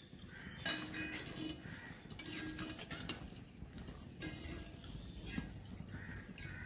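Fried banana chips and a steel slotted spoon rattling and clinking in a stainless steel bowl as the bowl is tossed to coat the chips in masala: light, irregular clicks.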